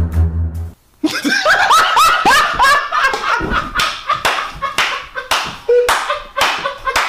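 Background music cuts off just under a second in. Then come high, rising squealing laughter and a quick series of sharp hand smacks, several a second.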